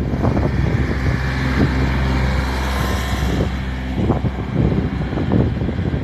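Motor vehicle engine running steadily, with wind rumbling on the microphone and irregular thuds.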